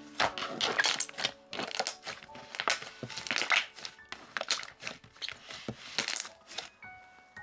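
Hands kneading and squishing a thick, bread-textured slime, making an irregular run of short sticky squishes and crinkly pops. Soft background music with held notes plays underneath.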